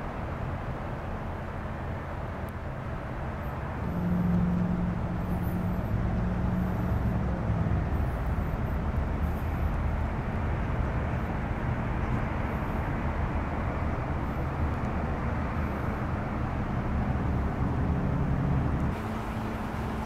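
Outdoor ambience dominated by the low rumble of motor vehicle traffic, louder with a steady engine hum from about four seconds in until just before the end.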